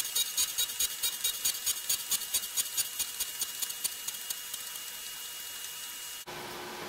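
Central Machinery 6x12 surface grinder's wheel grinding a 1018 steel workpiece: a fast, regular hissing crackle, about five pulses a second, over the steady whine of the spindle. The crackle fades out after about four seconds. Near the end the sound switches abruptly to a lower, steadier hum.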